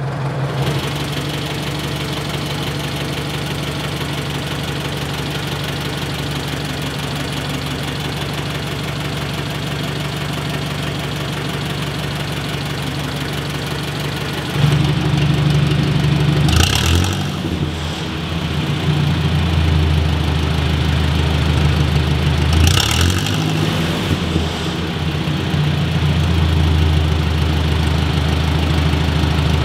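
1958 Ford 861 Powermaster tractor's overhead-valve four-cylinder engine idling steadily while warm, louder from about halfway through, with two brief revs about six seconds apart.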